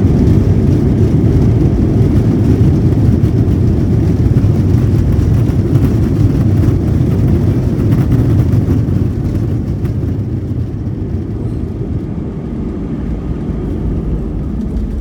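Loud, steady low rumble inside an airliner cabin on the runway: turbofan engines and wheels rolling on the runway. The rumble eases off about nine seconds in as the plane slows on its landing roll.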